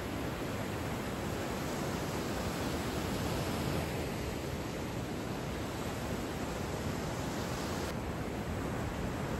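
Steady rushing wash of breaking whitewater in a Wavegarden wave pool, as machine-made waves break and churn along the pool.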